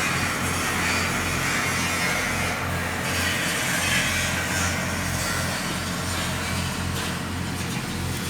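Electric arc welding a downhill root or fill pass on a 36-inch pipe: the arc crackles and hisses steadily over a low, steady hum.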